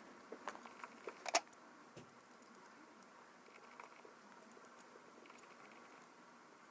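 Several small, sharp clicks and taps in the first second and a half, then only faint rustling: small tools and parts being handled while a compact digital camera is taken apart.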